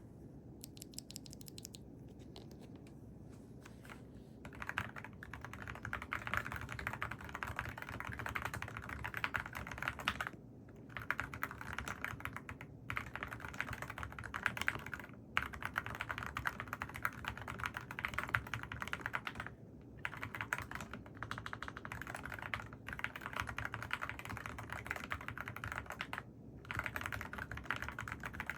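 Mechanical keyboard fitted with AKKO Rosewood switches being typed on fast and continuously: a steady stream of key clacks. It starts with a few scattered keystrokes and settles into rapid typing with several short pauses.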